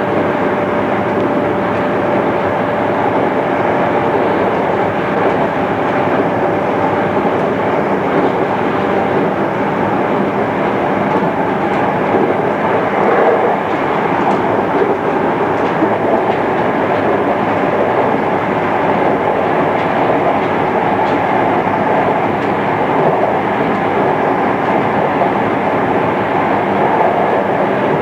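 Steady running noise heard inside a JR East 211 series electric train: a continuous rumble of wheels on rail and motors as the train runs along the line.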